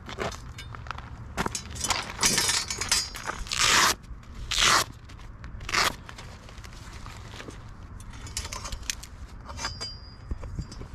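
A soft-armour ballistic vest being handled and lifted off its clay backing: fabric rustling and scraping, with four short, loud rasps a couple of seconds in.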